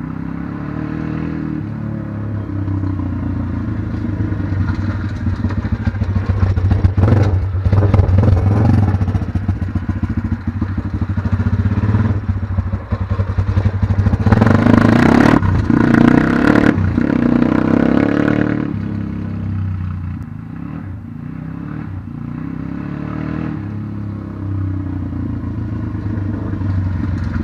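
A 140cc pit bike's single-cylinder four-stroke engine running and being revved. It is loudest when the bike passes close about halfway through. It then quietens as the bike rides away, still revving up and down.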